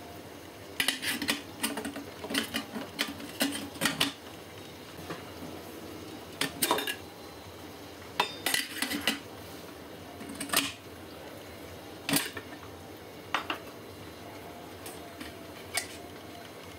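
Clicks and light clatter of a stainless steel kettle's snap-fit lid and plastic limescale filter being handled and fitted: a quick run of sharp knocks in the first few seconds, then scattered single clicks.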